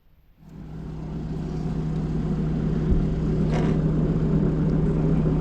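Hino rollback tow truck's diesel engine and hydraulics starting up after a moment of near silence, rising over about a second and a half to a steady hum. There is one brief sharper noise partway through.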